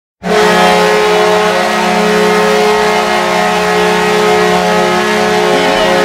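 Minnesota Wild goal horn sounding one long steady blast that starts abruptly, several low notes held together as a chord, signalling a goal scored.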